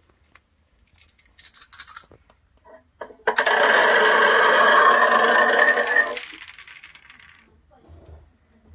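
Small balls rolling and clattering through a long tube of LEGO DUPLO pipe pieces, picked up by a piezo contact mic on the tubes. A few clicks come first. About three seconds in, a dense rattle with a hollow ringing tone begins, lasts about three seconds, then trails off.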